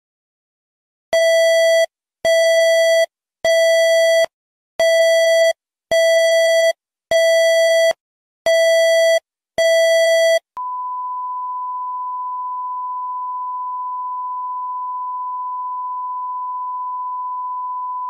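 Electronic emergency alert signal: eight short, buzzy beeps about a second apart, then a steady, higher pure tone held for about eight seconds.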